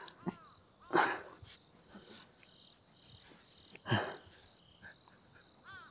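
Crickets trilling steadily in the evening, with birds chirping now and then. A man lets out two short, breathy sob-laughs, about a second in and again around four seconds.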